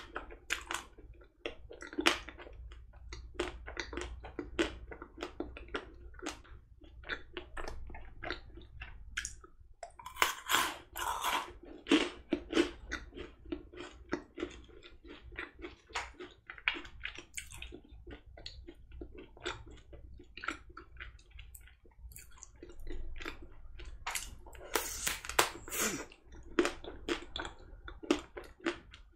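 Close-miked chewing of a Magnum chocolate-coated ice cream bar: irregular crisp crackles of the thick chocolate shell breaking, mixed with wet mouth sounds. Louder bursts of crunching come twice, partway through and near the end.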